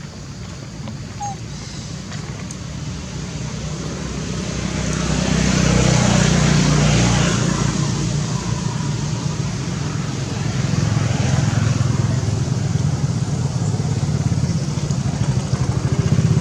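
A road vehicle's engine running close by, growing louder to a peak about halfway and then easing off, with engine noise building again near the end.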